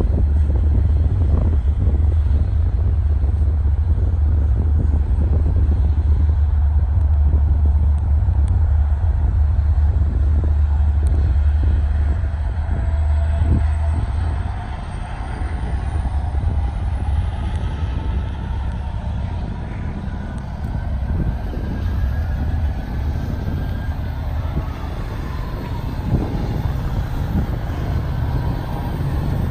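Long Island Rail Road DE30AC diesel-electric locomotive with its train: a heavy, steady low engine rumble that eases about halfway through, as several rising whines climb in pitch over the next ten seconds or so.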